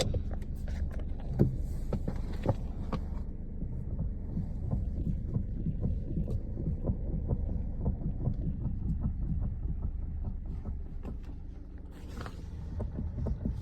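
Lada Granta FL's suspension or steering knocking and clicking repeatedly as the steering wheel is turned with the car standing still, heard inside the cabin over a steady low hum. The owner cannot tell what the knock is.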